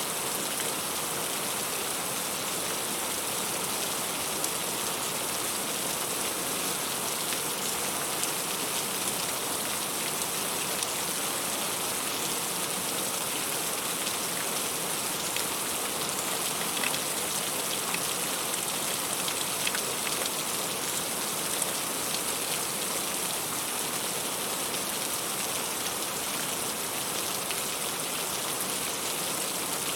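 Heavy rain falling steadily, an even hiss with occasional sharper drop taps standing out here and there.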